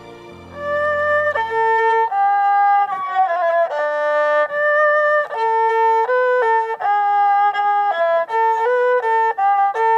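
Erhu, the Chinese two-string bowed fiddle, played solo: a slow melody of held notes, some joined by short slides, starting about half a second in.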